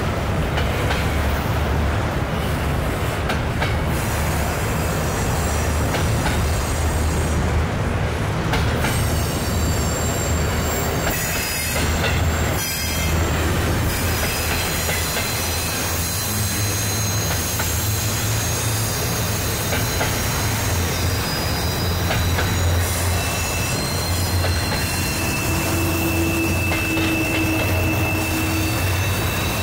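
Double-stack container freight cars rolling past across a steel girder bridge: a steady, heavy rumble of wheels on rail. Thin, high-pitched wheel squeals come and go through the second half.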